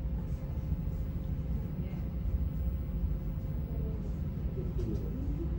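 Steady low rumble with a thin constant hum over it, and faint voices in the background near the end.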